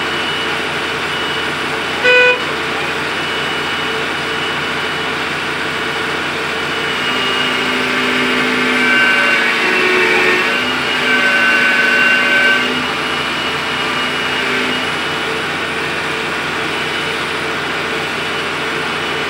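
Excavator engine running steadily, with a short horn toot about two seconds in. The engine sound swells for a few seconds around the middle as the machine works.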